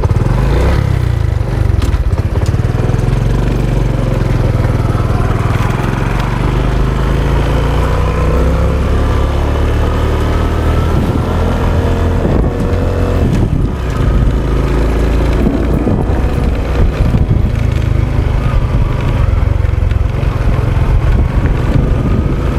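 Single-cylinder four-stroke engine of a Honda XRM 125 Dual Sport motorcycle running while being ridden, its pitch rising and falling with the throttle.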